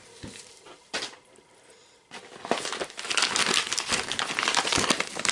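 Plastic packaging crinkling and rustling as it is handled, starting about two seconds in after a single click.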